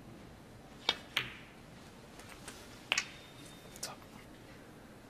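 Snooker cue and balls clicking on the table as a red is potted: two pairs of sharp clicks, about a second in and about three seconds in, then a softer click near four seconds.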